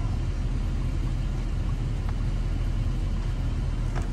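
Dually pickup truck's engine idling, a steady low rumble heard from inside the cab.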